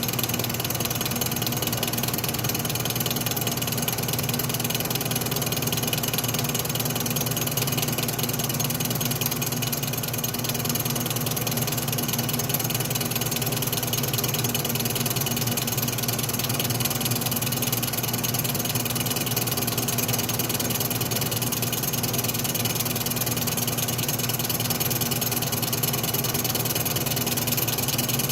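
Atlas metal lathe running steadily, its motor and drive giving an even, unchanging mechanical hum.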